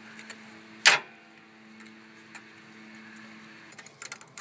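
A single sharp metallic clink of a spark plug socket and extension about a second in, then a faint steady hum, and a run of light ticks and rattles from the tools near the end.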